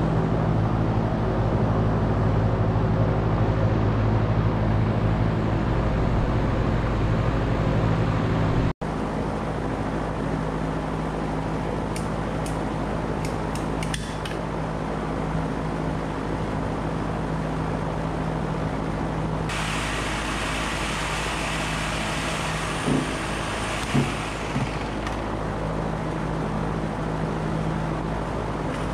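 A steady mechanical hum, with a few clicks and two short knocks around the middle.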